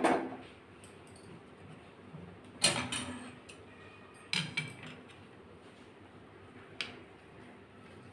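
Steel spoon clinking and scraping against a small stainless-steel bowl while stirring milk into melted chocolate. There are a few separate clinks: one right at the start, a louder one about a third of the way in, a pair around the middle, and a small one near the end.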